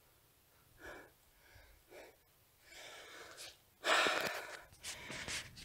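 A person breathing hard close to the microphone, short gasps and heavy breaths out from the effort of climbing, growing louder after a few seconds.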